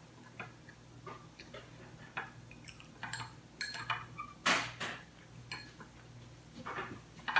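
Wooden chopsticks clicking and scraping against a ceramic rice bowl, with chewing: a scatter of light irregular clicks and one louder scrape about four and a half seconds in.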